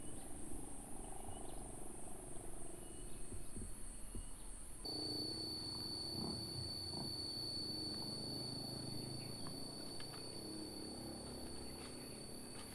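Insects calling: a steady, fast-pulsing high trill throughout, joined about five seconds in by a second, steady high-pitched whine.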